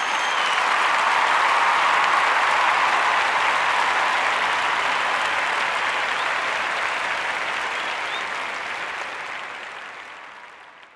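Crowd applauding, a sound effect that fades in, holds steady and fades out, with a brief whistle near the start.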